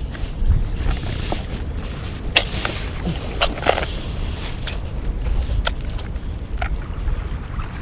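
Wind buffeting an action camera's microphone in a steady low rumble, with a few short clicks and rubs from the camera and its strap being handled.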